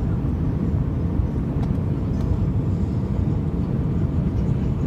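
Steady low rumble of an airliner cabin in flight: engine and airflow noise heard from inside the aircraft.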